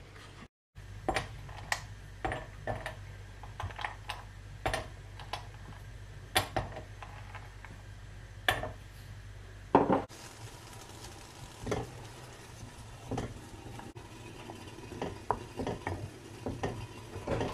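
A spoon clinking and knocking against glass bowls in scattered sharp taps. Later it is scraping and stirring melting white chocolate in a glass bowl set over a saucepan.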